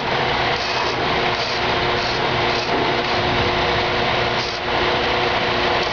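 Electric winch motor running steadily with a high whir, drawing the side wing into its quick coupling.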